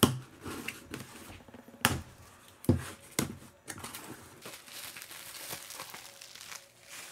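Cardboard box flaps being pulled open and the packing inside rummaged, with several sharp cardboard snaps and knocks, then a clear plastic bag crinkling as a boxed vinyl figure is pulled out.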